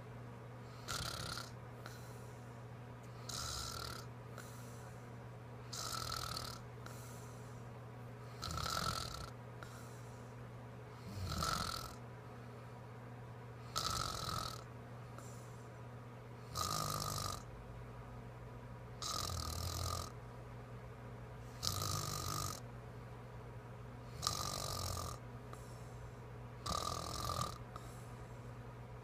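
A woman snoring in her sleep: a short snore about every two and a half seconds, even and regular, over a steady low hum.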